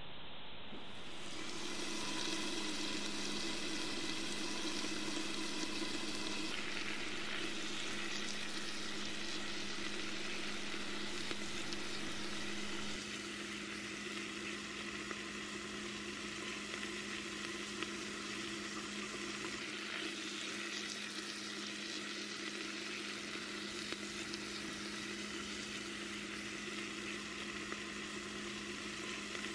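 Chopped onion and garlic sizzling as they sauté in hot oil in a clay pot: a steady frying hiss with a low hum beneath it. The sizzle drops a little in level about halfway through.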